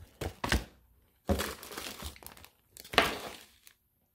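Clear plastic packaging crinkling as bagged throttle parts are handled in a cardboard box, in three bursts of rustling with the sharpest about three seconds in.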